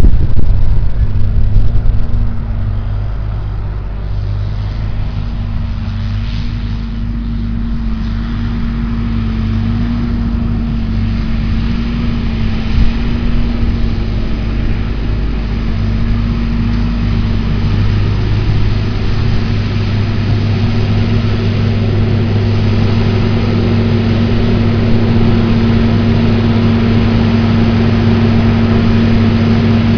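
Farm tractor's diesel engine running steadily, growing gradually louder as it draws nearer, with wind buffeting the microphone at the start.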